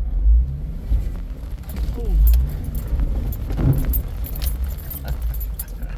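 Jeep driving slowly over a rough trail in four-wheel-drive low, heard from inside the cab: a steady low engine and drivetrain rumble with irregular light metallic rattling and jingling as the vehicle rocks over the ground.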